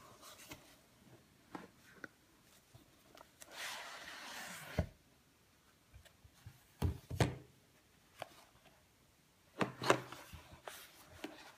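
Cardboard iPod packaging handled in cotton-gloved hands: cardboard rubbing and sliding, with a drawn-out scrape about four seconds in and several soft knocks, the loudest about seven and ten seconds in.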